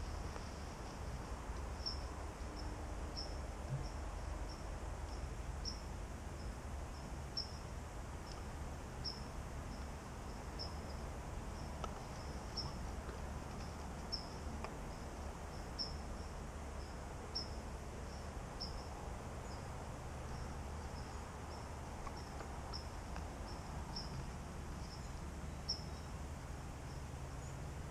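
A cricket chirping steadily, short high chirps about twice a second, over a low steady rumble.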